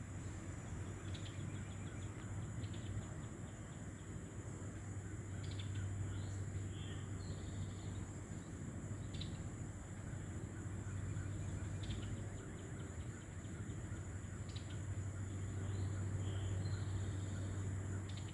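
Outdoor ambience: small birds give brief chirps every few seconds, with a couple of short warbled phrases, over a steady low hum.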